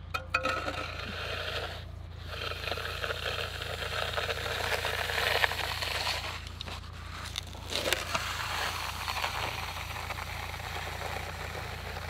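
Bull float sliding and scraping over a freshly poured wet concrete slab in long push-and-pull strokes, with a couple of short breaks. The floating pushes the stone down and brings the cream up to smooth the surface.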